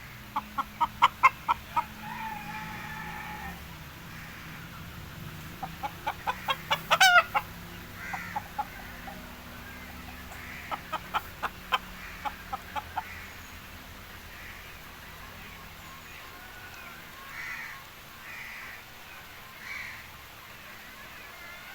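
Hen cackling: runs of quick, sharp clucks, three times, the first run ending in a drawn-out call, then softer scattered clucks.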